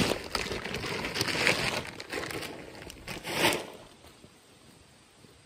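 Crinkling and rustling in uneven bursts for about three and a half seconds, then dying away to faint background.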